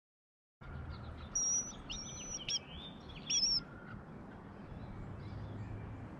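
A songbird calling: a few short, high chirps, some held level and some sliding, in the first few seconds, over steady outdoor background noise.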